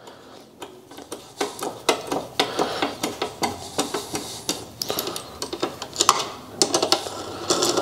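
Light metallic clicks and clinks of an 8 mm hex key working a bolt loose and turning it out, many small irregular ticks.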